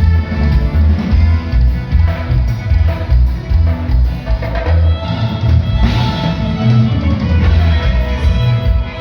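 Band music with a steady beat and strong pulsing bass, with guitar and drums.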